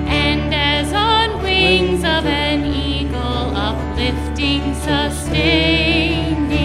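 Church praise band playing a hymn: acoustic guitar and a sustained low note under voices singing with vibrato.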